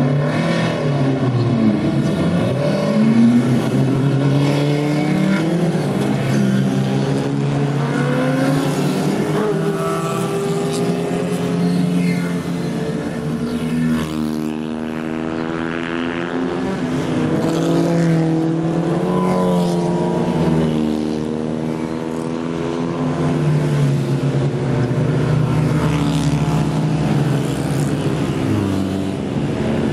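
A pack of small classic racing cars, Fiat Abarths, Minis and similar small saloons, accelerating and passing by, many engines sounding at once. Their overlapping notes repeatedly climb in pitch and drop back as the cars go up through the gears.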